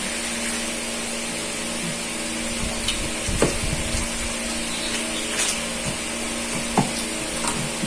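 Steady machine hum with an even hiss, like a motor running, with a couple of short knocks, the loudest about three and a half seconds in.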